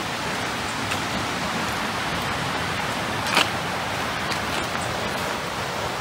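Steady rushing of flowing stream water, an even hiss with no breaks. A single short click sounds a little past halfway.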